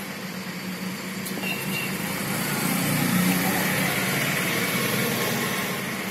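A motor vehicle engine running steadily with a low hum, swelling louder about halfway through.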